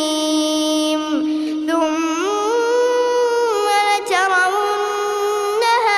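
A boy's voice reciting the Quran in a melodic, drawn-out chant, holding long notes that glide up and down in pitch, with short breaks for breath about a second in and again near four seconds.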